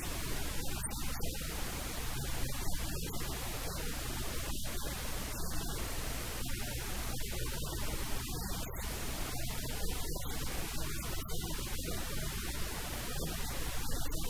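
Steady static hiss with a low hum underneath, the audio track's noise floor with no speech or music.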